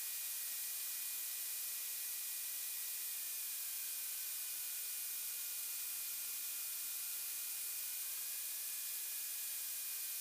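Steady hiss of an aircraft intercom audio feed, with a faint thin whine that drifts down in pitch and later back up.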